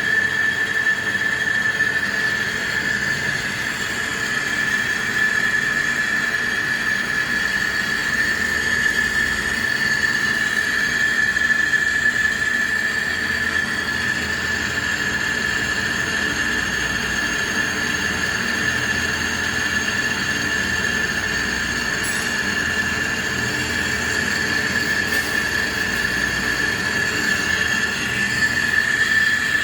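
CNC lathe turning a large bronze bushing, the cut giving off a steady high-pitched whine over the hum of the machine.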